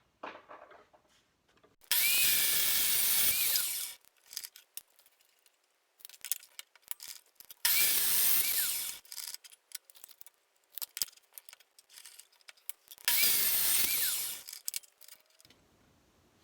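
A power saw making three short cuts through steel bar stock, each cut lasting about two seconds, with small handling clicks between the cuts.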